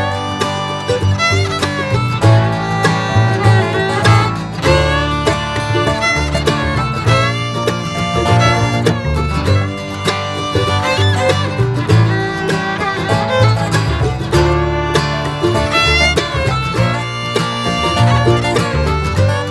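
Background music: upbeat bluegrass-style tune with fiddle, guitar and banjo over a steady bass line.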